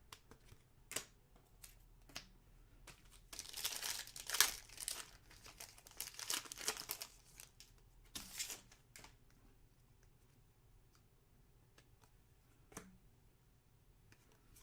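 Trading-card pack wrapper crinkling and tearing as it is opened, mostly between about three and nine seconds in, followed by a few faint clicks of cards being handled.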